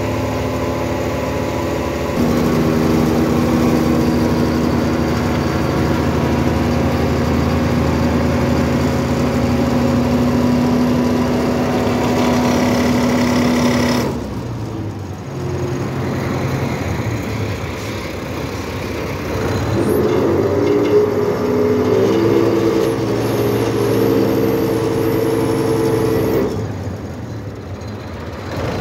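Farm tractor's diesel engine running with a steady drone that steps up in pitch about two seconds in and cuts back sharply about halfway. Near the end it revs up and holds for several seconds as the front loader lifts a hay bale, then drops back.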